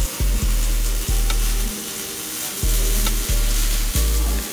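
Arc welder crackling and sizzling as a mechanic welds the car's exhaust pipe after removing its catalytic converters. The arc strikes in about six short runs, each under a second, with a longer pause in the middle.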